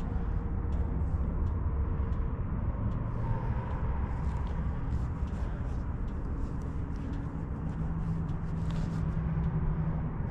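Yamaha R7's parallel-twin engine running at low revs, a steady low rumble.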